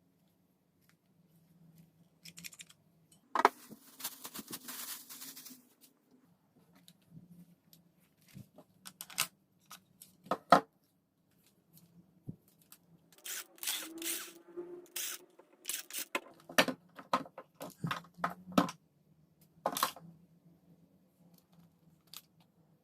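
Irregular clicks, knocks and short scraping or rustling noises of objects being handled at close range, with a faint steady low hum underneath.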